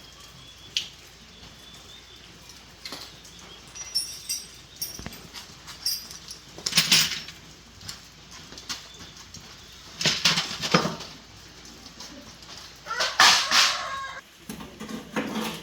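Chickens flapping their wings and clucking, in three short, loud bursts.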